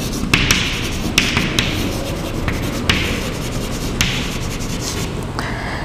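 Chalk writing on a chalkboard: a run of short scraping strokes, each with a sharp tap as the chalk meets the board, over steady low background noise.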